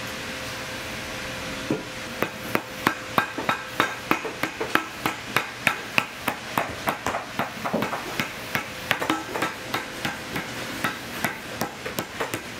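A hand hammer striking a boot during rebuilding: a quick, uneven series of taps, about three a second. The taps start a couple of seconds in, after a steady hum.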